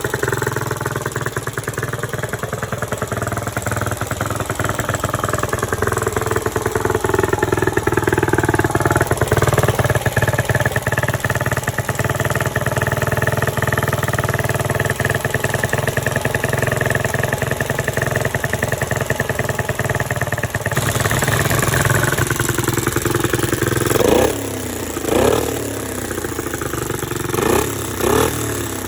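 1965 Honda S65's small single-cylinder four-stroke engine running, its pitch rising and falling slowly. Near the end the throttle is blipped in a few quick revs.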